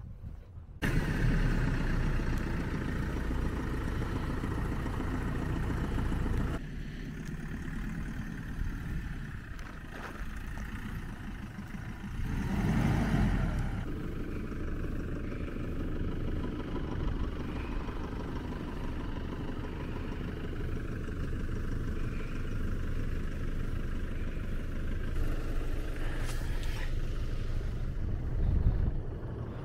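Car engine running steadily, coming in suddenly about a second in, with a brief swell in the middle and a thump near the end.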